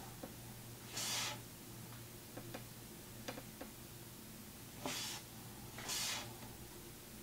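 Quiet room with a steady low hum, a few faint ticks around the middle, and several short soft hisses, about a second in and twice between five and six seconds in.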